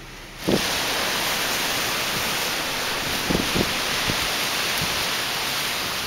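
Strong gusty wind rushing hard, with gusts buffeting the microphone in a few low thumps. It starts suddenly about half a second in.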